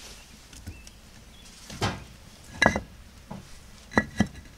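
Split firewood being put into a concrete-block smoker firebox, knocking against the blocks and the other wood: four sharp clunks, the last two close together near the end.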